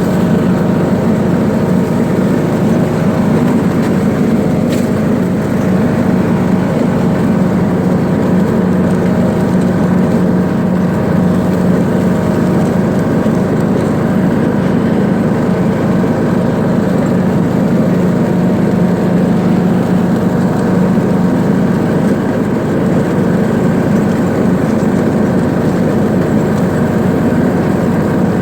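Single-cylinder engine of a John Deere D105 riding lawn mower running at a steady speed, with no change in pitch or load.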